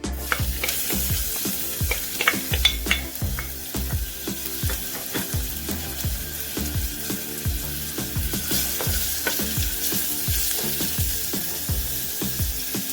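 Finely chopped onion frying in hot oil in a saucepan: a steady sizzle, with quick clicks and scrapes of a utensil against the pan, busiest in the first few seconds.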